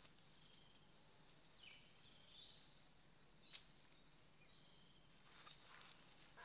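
Near silence: faint outdoor ambience with a few faint bird chirps and a soft click about halfway through.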